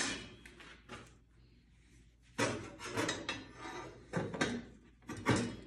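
Clinks and rattles of a table saw blade and its arbor parts being handled, in a few short bouts with quiet gaps between.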